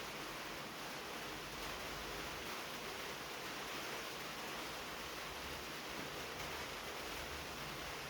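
Soft rain falling on a tin roof, an even, steady hiss.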